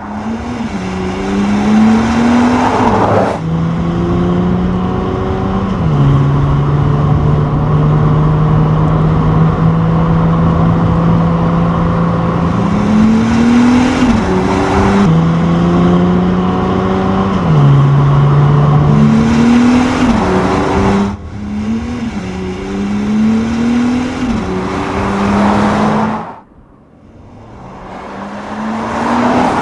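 2025 Audi SQ5's turbocharged V6 engine pulling hard, its note climbing and dropping back at each upshift, with stretches of steady cruising between. The sound breaks off abruptly a few times.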